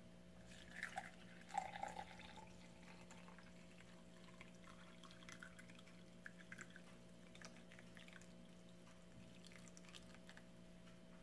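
Water poured from a glass measuring jug into a tall drinking glass over a tea bag, a quiet trickle and splash, loudest in the first two seconds as it hits the empty glass, then a soft steady stream as the glass fills. A faint steady hum lies underneath.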